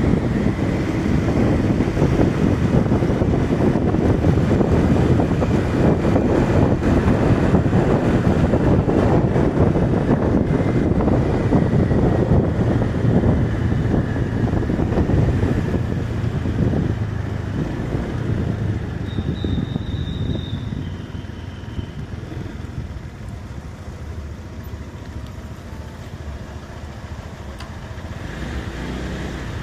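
Motor vehicle driving, its engine and road noise loud at first, then fading over the second half.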